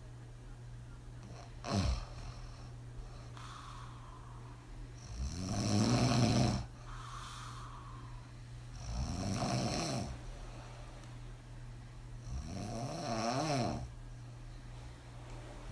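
A woman snoring heavily while sleeping on her back with her mouth open: three loud snores about three to four seconds apart, with a short sharp sound about two seconds in and softer breaths between.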